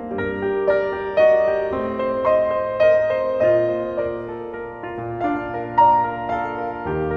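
Background music: a soft piano melody with sustained notes.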